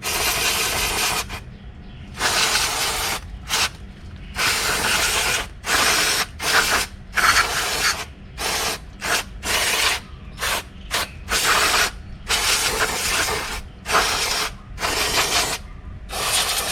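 Aerosol can of brake cleaner sprayed in many short bursts, each up to about a second long, with brief pauses between trigger presses, to clean the opened brake caliper.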